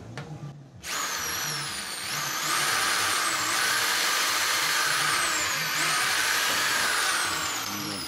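Power drill running as a small bit bores a pilot hole through a thin aluminum PC case panel. The motor whine starts about a second in and rises and falls in pitch as the trigger is eased, then begins winding down near the end.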